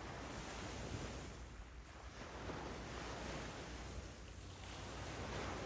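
Wind rushing over the microphone, a steady noise that swells and eases every second or two, with a low rumble beneath it.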